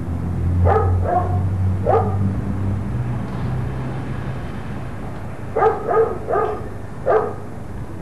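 A dog barking in two runs: three barks in the first two seconds, then four more starting about five and a half seconds in, over a low steady hum.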